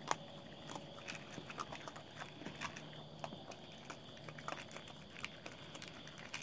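Raccoons eating dry cat food kibble from a bowl: irregular crunching and clicking as they chew, several small crunches a second.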